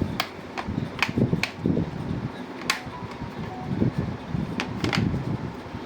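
Screwdriver and screws clicking and knocking against a laptop's plastic bottom cover as it is screwed back on, with low handling rumble between the irregular sharp clicks.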